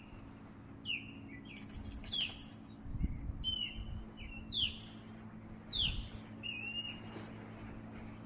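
Birds chirping: short, high chirps that fall in pitch, repeated irregularly about once a second.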